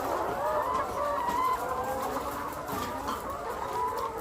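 A flock of laying hens clucking and calling, many short calls overlapping.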